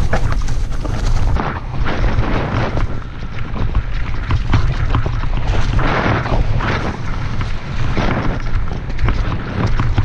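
Mountain bike rolling fast down a loose, rocky trail: tyres crunching over gravel and stones, with many sharp rattles and knocks from the bike over bumps. A heavy low rumble of wind buffets the camera's microphone throughout.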